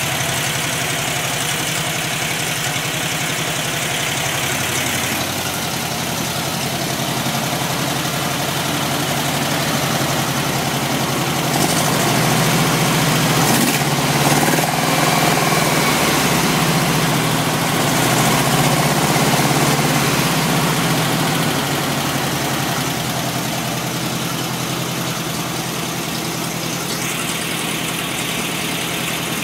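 Porsche 356 air-cooled flat-four engine with twin carburettors, idling steadily while it is being tuned. From about twelve seconds in it speeds up slightly and runs louder for several seconds, then drops back to its idle.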